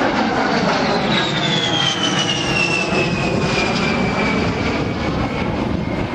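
A-10C Thunderbolt II's twin TF34 turbofan engines as the jet flies past: a high whine that falls in pitch over a few seconds, above a steady jet rumble.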